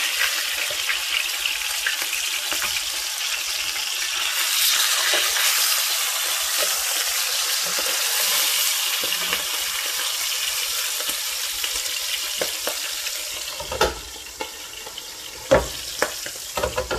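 Milkfish (bangus) frying in hot oil in an open pan, a steady loud sizzle and spatter while a wooden spatula turns the fish. After about 13 seconds the sizzle drops, and a few sharp knocks follow near the end as the metal lid is handled over the pan.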